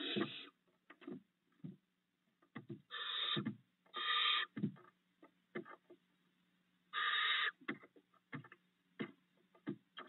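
Barn owl owlets giving four rasping screech calls, each about half a second long, with short knocks and scuffles from the owlets moving about on the wood-shaving floor of the nest box in between. A steady low hum runs underneath.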